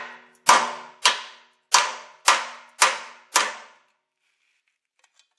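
Hammer striking a small steel chisel six times, about half a second apart, each blow ringing briefly. The chisel is being driven into the seam where the rear wheel hub meets its mount to pop the hub loose.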